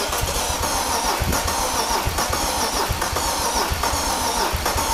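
BMW 330i ZHP's 3.0-litre inline-six being cranked by the starter motor, turning over steadily without firing. It won't catch because the fuel tank is nearly empty.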